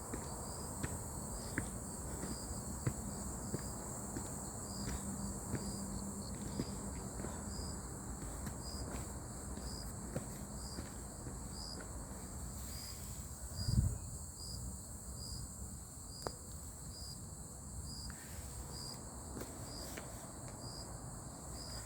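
Insects in the woods singing steadily, a continuous high drone with a regular repeating chirp over it. Scattered light clicks come in the first half, and there is one low thump about fourteen seconds in.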